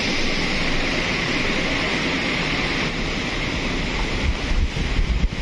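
Rushing of a swollen, muddy river in monsoon flood: a steady, loud hiss of fast water. From about four seconds in the water sound drops away and uneven wind buffeting on the microphone takes over.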